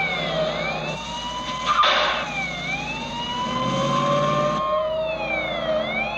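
Police car siren wailing, its pitch slowly rising and falling about every two and a half seconds, over a running car engine, with a short bang about two seconds in.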